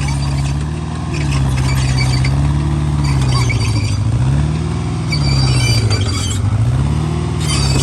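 Small hydraulic excavator's diesel engine working under load, its pitch dipping and rising about every two seconds as the hydraulics take up the work. Intermittent high-pitched squealing comes in over the engine several times.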